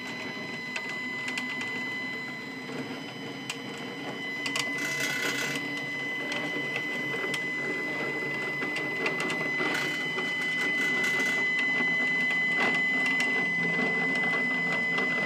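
Stepcraft 840 CNC router's stepper motor driving the gantry carriage along the Y-axis lead screw: a steady high whine with rattling and scattered clicks, getting a little louder in the second half. The motion sounds rough, "like crap", right after the carriage screws were snugged.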